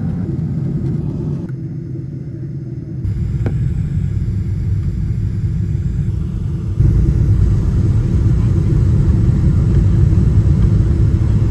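Airliner cabin noise from a window seat: a steady low rumble of the jet engines and airflow. It steps up louder about seven seconds in, with the plane rolling on the ground at the airport.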